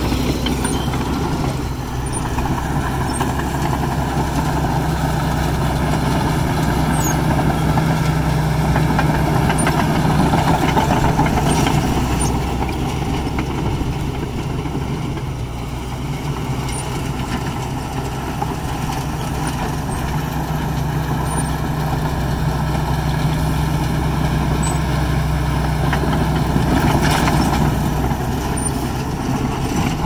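Bulldozer's diesel engine running continuously at work, a steady low drone that swells and eases slightly with load.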